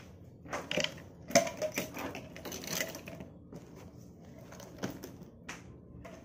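Household objects being handled and set down at a table: a quick run of clicks and knocks in the first three seconds, the loudest about a second and a half in, then a single knock near the five-second mark.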